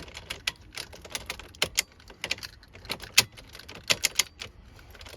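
Irregular light clicks and taps of hands working a newly seated ignition switch and its plastic and metal parts at the steering column.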